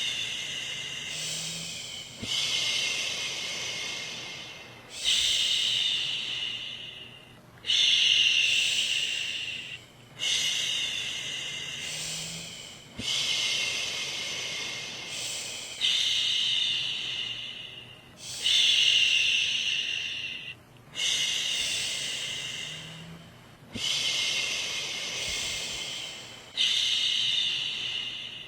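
A woman shushing in long, repeated "shhh" sounds to soothe a baby to sleep, about one every two and a half to three seconds. Each shush starts loud and fades before the next.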